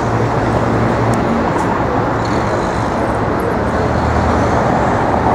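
Steady city road traffic noise: the mixed drone of cars and other vehicles running past.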